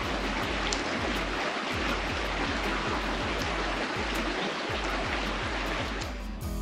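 Shallow river rushing over a rocky bed in a steady hiss of flowing water.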